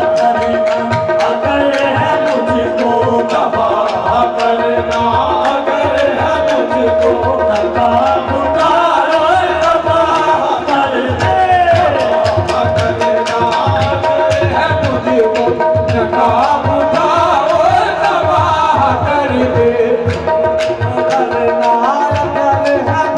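Live qawwali: tabla drumming under steady held notes, with male voices singing melismatic lines over them.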